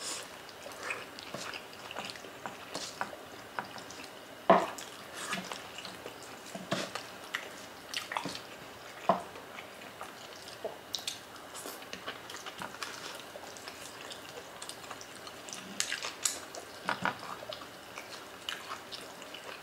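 Close-up wet eating sounds: irregular mouth smacks, chewing and sticky clicks as oxtail kare-kare in its thick peanut sauce with rice is eaten by hand.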